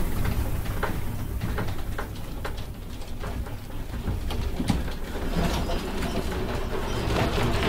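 Low rumble of an earthquake shaking a room, with furniture and objects rattling and clicking over it.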